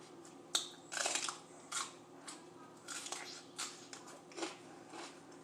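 Crunching bites and chewing of raw mini sweet peppers, a quick, irregular run of crisp crunches about every half second.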